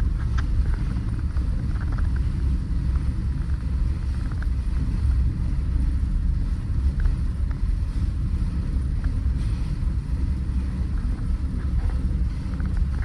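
Steady low rumble aboard the ferry Pont-Aven, the ship's drone mixed with wind on the microphone, with a few faint, scattered high ticks.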